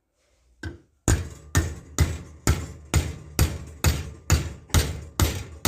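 Hammer blows driving a small metal wedge into the handle of a hammer head, starting about a second in as a steady run of about ten strikes, two a second.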